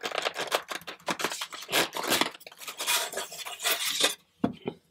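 Styrofoam lid being pulled off a tight-fitting styrofoam box, foam rubbing on foam in a quick run of scratchy scrapes that stops about four seconds in, followed by a couple of light knocks.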